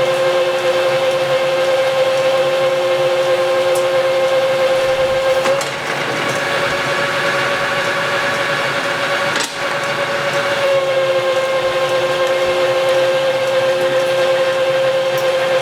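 Metal lathe taking a coarse-feed roughing cut on a shaft, 50 thousandths a side: a steady high whine over a rough scraping noise. The whine shifts slightly about five and a half seconds in and settles back near eleven seconds, with a single sharp click about nine and a half seconds in.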